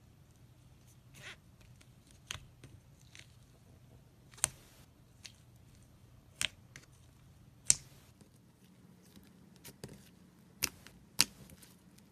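Green slime being squeezed and kneaded by hand in a plastic cup, giving scattered sharp sticky clicks and pops at uneven intervals, a few of them much louder than the rest.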